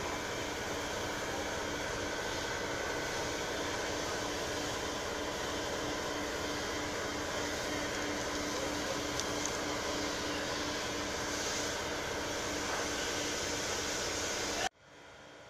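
Steady whirring hiss of a running machine, with a faint pulsing hum, starting abruptly and cutting off suddenly near the end.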